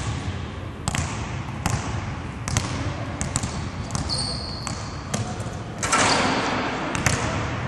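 Basketballs bouncing on a hardwood gym floor, several players dribbling, with sharp echoing thuds about once a second and brief sneaker squeaks around four seconds in. About six seconds in there is a louder, noisier clatter lasting about a second, as a player goes up for a layup at the basket.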